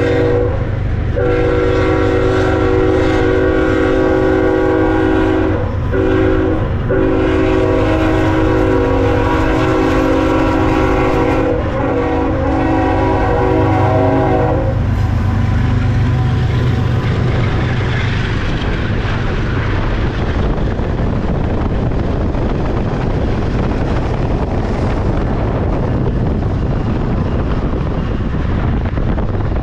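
Locomotive air horn sounding a multi-note chord in several long blasts with brief breaks, stopping about halfway through. After it, a steady rushing noise and low rumble of the freight train running at speed.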